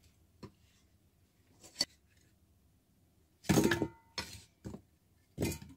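Steel cleaver knocking on a wooden chopping board while cut pieces of peeled Chinese yam are pushed together: a couple of scattered taps, then a louder cluster of knocks with a short metallic ring about three and a half seconds in, and a few more taps.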